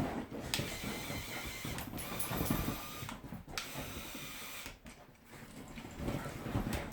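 A small Lego electric motor whirring as it drives plastic gears in a motorized Lego model. It runs in stretches, stopping briefly about three seconds in and again around five seconds before starting up again.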